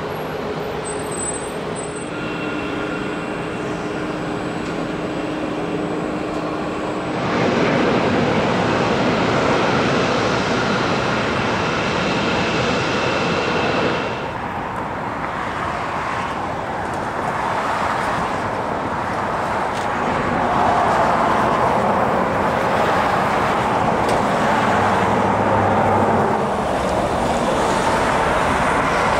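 Business-jet turbofan engines heard across an airport, a steady jet noise with a thin high whine over it. The sound jumps abruptly louder about a quarter of the way in and changes again around the middle, as one jet gives way to another.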